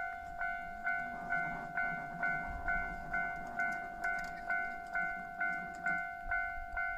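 Japanese level-crossing warning bell ringing with a steady repeated ding, about two strokes a second. From about a second in until near the end, a train passes over the crossing and adds a low rumble under the bell.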